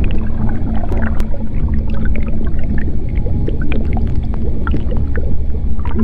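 Ambient soundscape track: a deep, steady rumble with a low held hum, scattered with short clicks and squeaks.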